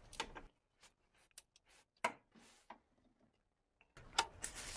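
A few faint, scattered clicks from a ratchet and socket being fitted and worked on the alternator's pivot bolt.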